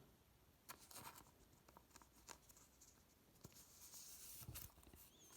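Near silence, with a few faint taps and soft scratchy rustling of trading cards being handled.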